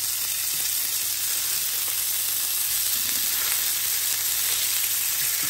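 Hot dogs and sausages sizzling steadily in hot oil in a nonstick frying pan as they are turned with tongs.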